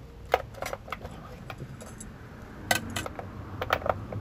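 Scattered sharp metallic clicks and clinks of outboard carburetors and their linkage being handled and pulled loose by hand, with a quick run of clicks near the end. The motor is not running: the carbs are coming off for cleaning.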